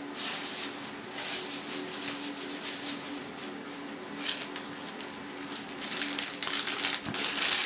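Clear plastic ham-maker bag rustling and crinkling as it is handled and opened, louder and denser near the end. A faint steady hum runs underneath.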